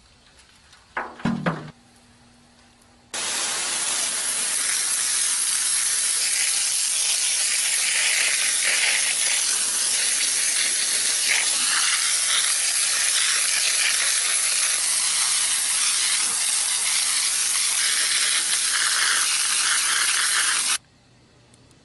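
A jet of water from a hose spraying onto an aluminium ant-nest cast, washing the soil off: a steady spray hiss that starts sharply about three seconds in and cuts off sharply near the end. A brief thump comes about a second in.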